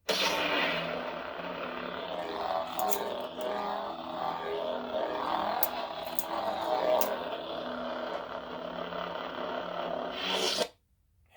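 Lightsaber sound board playing its "Fallen Apprentice" sound font: the blade ignites, hums steadily with a few sharp crackles, and cuts off suddenly near the end.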